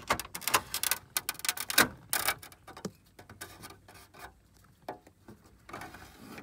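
Plastic trim removal tool scraping and clicking against the dashboard's plastic trim panel as it is worked into the seam. The dense run of scrapes and clicks thins out after about two and a half seconds to occasional taps and rubs.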